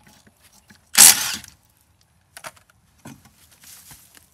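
One loud, sharp metallic clank about a second in, then a few faint clicks and knocks of metal objects being handled.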